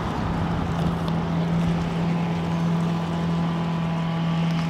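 Boomboat engine running under power with a steady low drone as the little log-boom boat pushes through the water.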